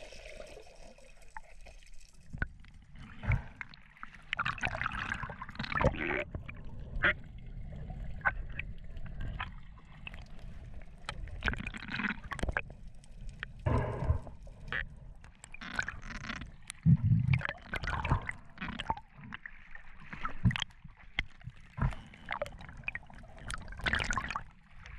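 Swimmer's water noise heard through an underwater camera housing: muffled gurgling and sloshing with a low rumble, broken by irregular knocks and bumps.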